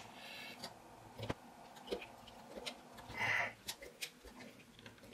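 Small screwdriver turning a screw in a folding knife's handle: scattered faint metallic clicks and ticks as the bit works the screw, with a short soft hiss about three seconds in.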